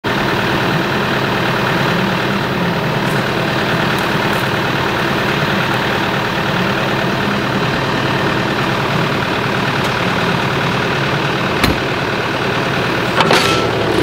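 John Deere 4066R tractor's diesel engine running steadily at idle. Near the end there is a short clunk as the cab door is shut.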